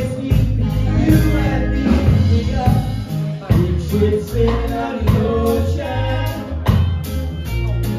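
A live band playing a song with singing, over acoustic guitar, electric guitar and a drum kit.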